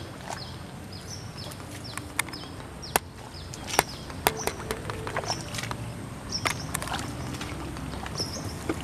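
Boots wading and squelching through a flooded, muddy rice paddy, with sharp wet clicks and splashes now and then. Small birds chirp over and over in the background.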